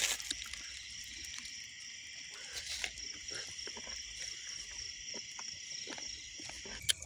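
Steady high-pitched chorus of night insects trilling continuously, with a few faint rustles and clicks of handling.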